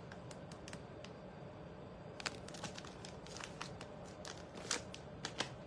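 Clear plastic wrapping on a handbag crinkling and crackling as the bag is handled, in scattered irregular clicks.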